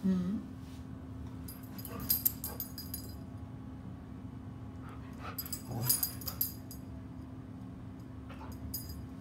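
Siberian husky talking: a short low whine at the very start, then two bouts of rising-and-falling yowling vocalizations about two seconds in and again around five to six and a half seconds in. Its collar tags jingle with each bout as it moves.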